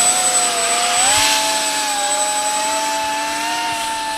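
3D-printed RC hovercraft's fans whining steadily. The pitch steps up about a second in as the throttle is opened, and the sound fades slightly as the craft pulls away across the water.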